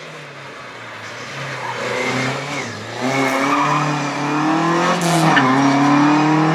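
Classic rally car's engine approaching and growing louder from about two seconds in, its pitch climbing and then dropping sharply a couple of times as the driver works the throttle.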